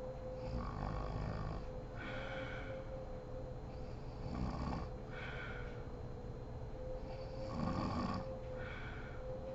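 A sleeping woman snoring in slow, regular breaths, about three breath cycles in all, the loudest snore near the end.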